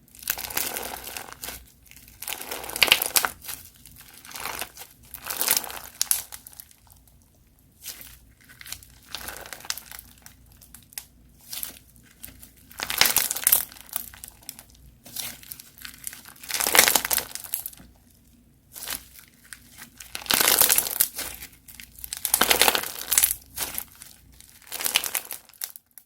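Crunchy slime being squeezed and pressed by hand, giving repeated crackling, crinkling bursts with short quieter gaps between them.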